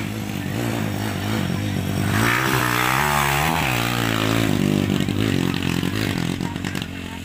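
Dirt bike engine revving as the motorcycle rides past close by on a dirt track, its note rising and falling with the throttle. It is loudest as it passes two to four seconds in, then fades as the bike rides away.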